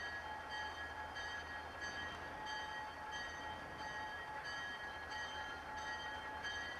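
A diesel locomotive, a Guilford GP39-2, approaches slowly over a low engine rumble, with its bell ringing about twice a second.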